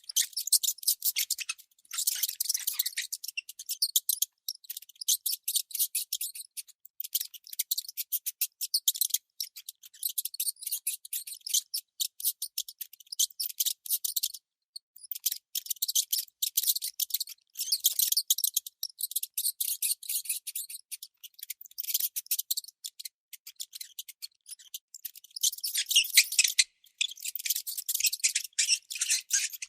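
Baby mouse squeaking: rapid, high-pitched chirps in long runs, broken by brief pauses about a second and a half in, midway and near the end.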